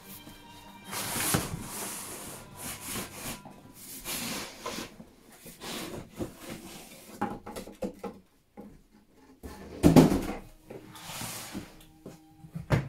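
A plastic rifle hard case being slid out of a long cardboard box: cardboard scraping and rustling as it comes out, then one heavy thump about ten seconds in as the case drops flat onto a laminate floor, followed by light handling knocks.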